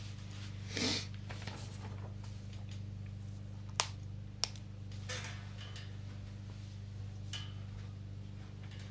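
Steady low electrical hum, with a short rustle about a second in and two sharp clicks close together near the middle.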